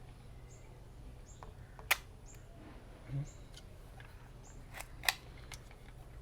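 Zeiss Ikon Ikoflex II twin-lens reflex camera's leaf shutter being cocked and fired at 1/100 s. Two sharp mechanical clicks, about three seconds apart, with lighter handling clicks around them and a soft low thump in between.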